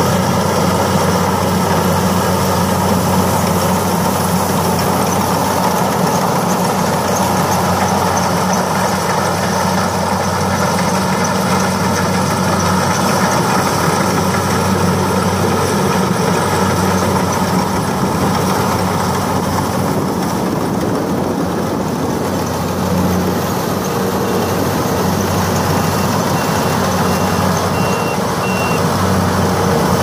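Kubota DC-60 rice combine harvester's diesel engine running steadily under load while the machine cuts and threshes rice. Near the end, a short series of high beeps sounds over it.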